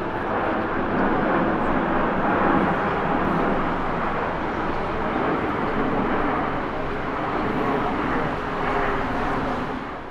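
Jet airliner's engines, a loud, steady rushing noise that begins to fade near the end.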